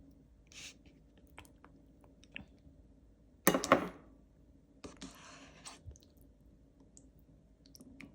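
Eating sounds at a table: scattered small clicks and taps, one louder clatter about three and a half seconds in, and a brief rustle around five seconds.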